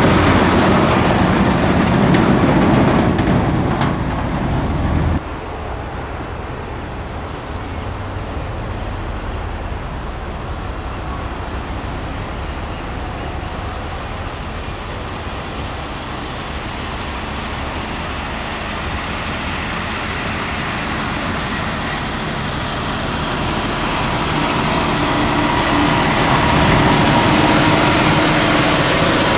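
MAN tipper truck's diesel engine running as it drives past close by, cut off abruptly about five seconds in. Then a Volvo A30D articulated dump truck's diesel engine, fainter at first and growing steadily louder as it approaches.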